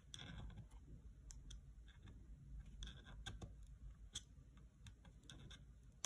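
Faint, scattered small clicks of a screwdriver tip working at a cable connector on a laptop motherboard, against near silence.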